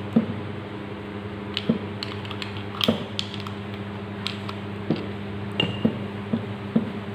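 Small irregular clicks and taps of metal distributor parts being handled and pressed together as the breaker plate is fitted into the distributor housing, over a steady low hum.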